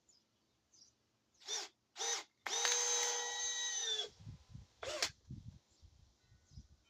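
Milwaukee M12 Fuel cordless hammer drill on speed 2 driving screws into wood. It gives two short trigger bursts, then one steady run of about a second and a half that winds down, then another short burst, with light knocks of handling in between.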